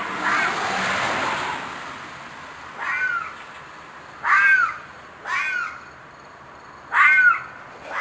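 An unidentified animal screeching repeatedly in the dark, a sound its hearer took for a fox or coyote in distress. There is a longer hissing cry at the start, then short screeches a second or two apart, each rising and then falling in pitch.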